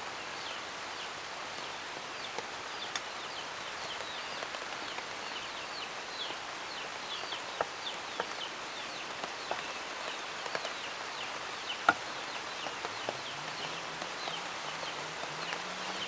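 Small birds chirping, many short high falling chirps several a second over a steady outdoor background. A few light knocks come from the wooden rolling pin on the plastic board as dough is rolled out, the sharpest about twelve seconds in.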